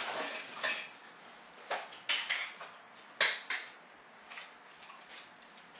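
Kitchenware being handled: a string of separate clinks and knocks, one near the start ringing briefly and the loudest a little past three seconds in.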